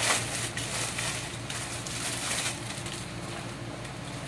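Thin plastic packaging bag crinkling and rustling as it is pulled open and a tactical vest is drawn out of it, with sharp crackles in the first half and softer rustling near the end.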